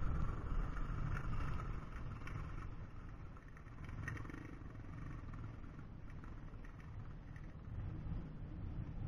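Yamaha WR450F single-cylinder four-stroke dirt bike engine running as the bike climbs a rocky hillside, fading over the first few seconds and then staying faint.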